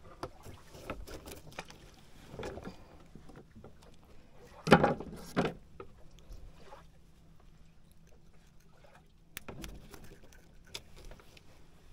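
Handling noise as a hooked fish is taken off the line with pliers in a wooden boat: scattered clicks, knocks and rustles, with a louder double knock about five seconds in.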